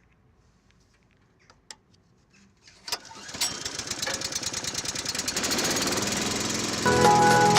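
Small engine of a leaf collecting machine starting about three seconds in after a few faint clicks, then running up to speed with a fast pulsing beat that grows louder. Music comes in near the end.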